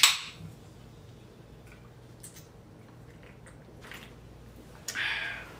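Aluminium Pepsi can just cracked open, its fizz hissing briefly and dying away, then a short noisy sip from the can about five seconds in.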